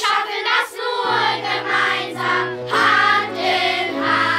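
Children's choir singing together, with steady low held notes joining underneath about a second in.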